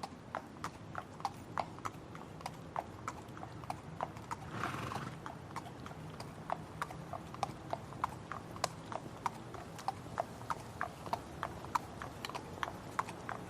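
Horse's hooves clip-clopping at a steady walk, about three sharp strikes a second, with a short breathy burst from the horse about five seconds in.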